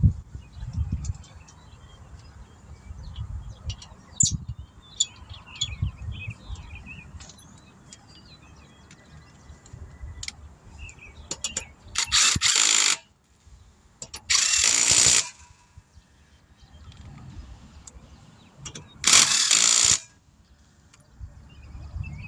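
Impact wrench run on a car wheel's lug nuts in three bursts of about a second each, in the second half, snugging the wheel onto the hub; light metallic clicks of the nuts and wheel being handled come before.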